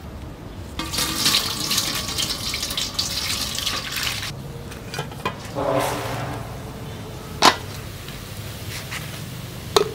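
Water pouring and splashing, stopping abruptly about four seconds in. A few sharp knocks follow, one near the end of the pouring's aftermath the loudest.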